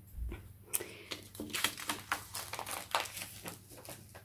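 Hands handling items and packaging on a tabletop: a run of quick, irregular crinkles and light clicks, thickest in the middle, tapering off near the end.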